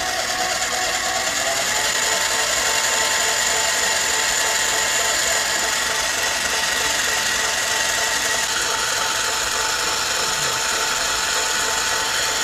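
Electric stand mixer running steadily with its whisk beating a thin batter of eggs, oil and yogurt. The motor's whine rises slightly in pitch in the first couple of seconds, then holds even.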